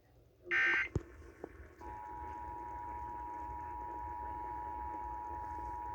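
The last short burst of EAS end-of-message data tones ends just before a click about a second in. From about two seconds in, the Emergency Alert System two-tone attention signal (853 and 960 Hz together) sounds steadily.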